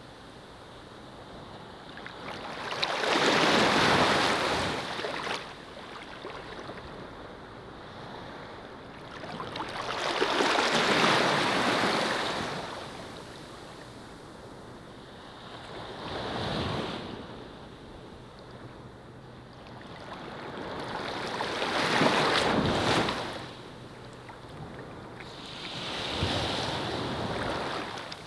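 Surf on a sandy beach: small waves wash in and draw back, the hiss swelling and fading five times, every five to seven seconds.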